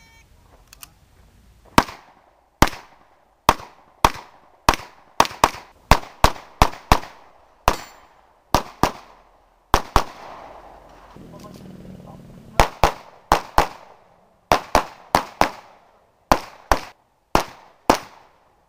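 Rapid handgun fire from an IPSC Open-division pistol during a stage run: shots come in quick pairs and short strings, with short breaks between arrays of targets. There is one longer pause of about two seconds near the middle.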